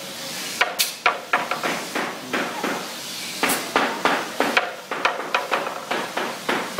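Unfinished wooden chair slammed and knocked down repeatedly onto a concrete floor in a drop test of its strength. The sound is a rapid, irregular run of sharp wooden knocks and clatters, loudest about a second in and again about three and a half seconds in.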